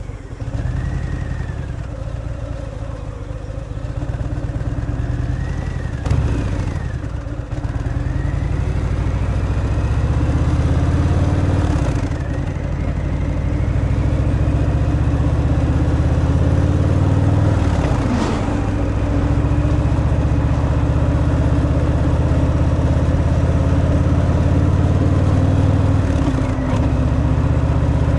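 Harley-Davidson Fat Boy's Milwaukee-Eight 114 V-twin running through its stock exhaust under way, the engine note building over the first several seconds. The pitch dips briefly and picks up again about four times, as at gear changes.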